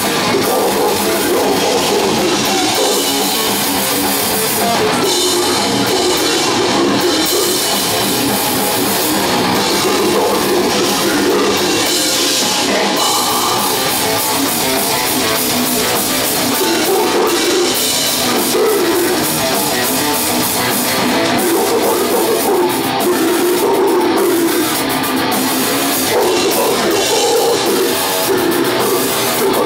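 Live death metal band playing at full volume: heavily distorted electric guitars and bass over a fast, busy drum kit, dense and unbroken.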